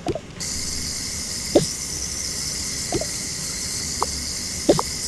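Running water filling a bathtub: a steady hiss starts suddenly about half a second in, with a handful of short, rising drip-like plinks over it.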